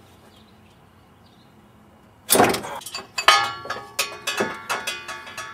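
Metal clanking and clinking as the engine fan and its bolts are worked loose and pulled off a Ford 302 V8: a sudden loud knock about two seconds in, then a rapid run of sharp clanks and clicks with a metallic ring.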